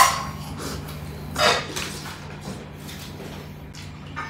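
Crunchy bite into the crisp coating of a fried chicken drumstick right at the start, then another loud crunch of chewing about a second and a half in, with fainter chewing and a smaller crunch near the end.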